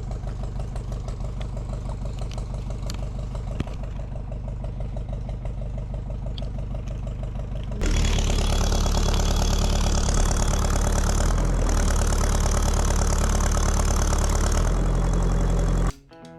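Backhoe's diesel engine idling with a steady rhythmic chug, then running noticeably louder from about eight seconds in.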